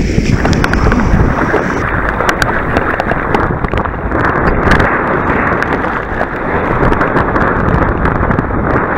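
Sea water rushing and splashing against a waterproof camera riding at the surface, with wind buffeting the microphone: a dense, muffled rush with scattered sharp clicks of spray hitting the case.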